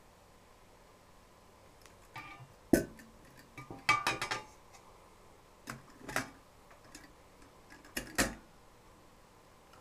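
Sharp metallic clicks and clanks from the antique Columbus Gigant's cast-iron mechanism being handled, in scattered groups: a loud single clack near three seconds, a quick rattle of clicks around four seconds, and pairs of knocks around six and eight seconds.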